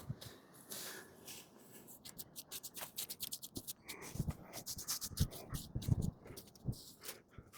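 Paintbrush stroking paint onto the bottom edge of a door: a quick, irregular run of scratchy brush strokes, with a few soft low knocks in the second half.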